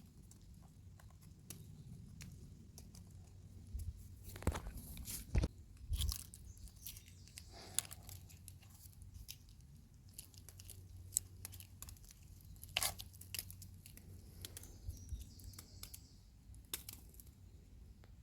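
Sporadic light crunches and snaps of dry forest litter and twigs underfoot, with a few louder crunches between about four and six seconds in and another near thirteen seconds.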